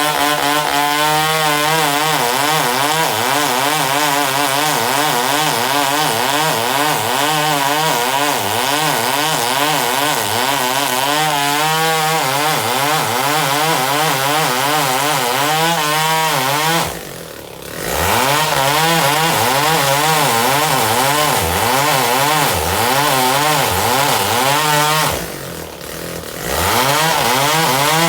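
Chainsaw cutting through wood, its engine pitch wavering up and down as it works under load. The engine eases off briefly twice in the second half before running hard again.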